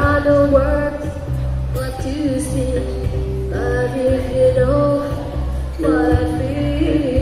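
A woman singing a pop song live, holding and bending notes over instrumental accompaniment with a steady bass line.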